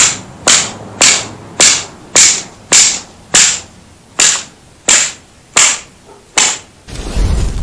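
A tennis racket smashed repeatedly against a concrete driveway: about eleven sharp cracks, roughly two a second, each with a short ringing tail. Near the end the smashing stops and a low rumbling noise takes over.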